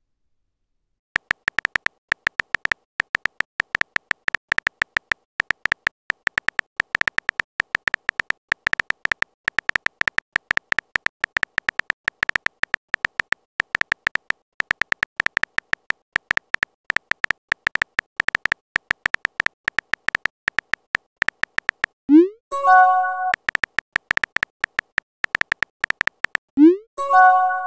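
Rapid keyboard typing clicks from a texting-story app, running for about twenty seconds. Near the end come two short message alerts, each a quick rising swoop followed by a few bright tones.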